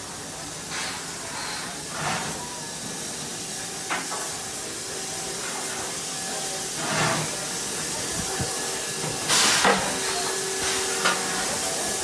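Steam locomotive standing at rest, hissing steam steadily, with several short louder gusts of hiss. The strongest gust comes about nine and a half seconds in.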